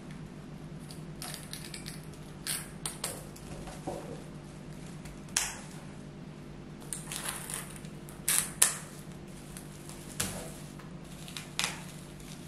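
Scattered short clicks, taps and knocks of small objects being handled, the loudest a pair about eight seconds in, over a steady low hum.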